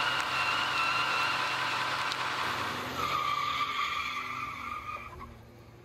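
Ford F-150 pickup doing a burnout: the rear tyre spins on pavement with a steady high tyre squeal over the running engine. The squeal drops slightly in pitch about three seconds in and cuts off near the end.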